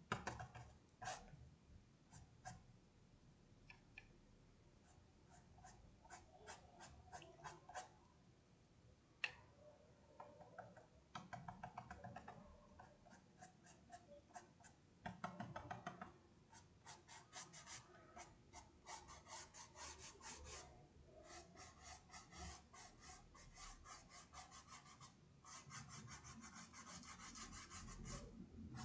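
Paintbrush strokes on a fabric tea towel: quiet, quick rubbing strokes in runs of several a second, with one sharper knock about nine seconds in.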